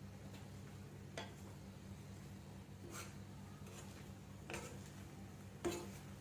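Four light clinks of a kitchen utensil against cookware, the last the loudest, over a steady low hum.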